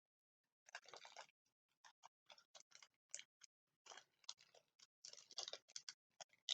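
Faint, irregular crinkling and clicking of packaging being picked and pulled open by hand.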